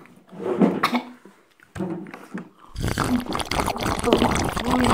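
A person coughing and spluttering after gulping jaljeera, a spiced cumin drink. In the second half a sleeve rubs against the microphone and the noise gets loud and dense.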